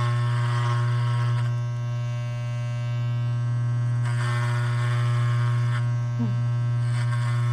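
Electric hair clipper running close to the microphone with a steady buzz. Its blades rasp in three stretches as they cut through a pigtail of hair.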